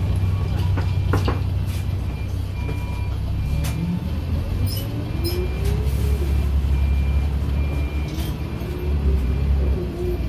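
Interior of an old 1999 Volvo bus on the move: the engine and drivetrain run with a deep steady rumble, and a whine rises in pitch as the bus speeds up, about four seconds in and again after about seven seconds. The body panels and fittings give scattered clicks and rattles.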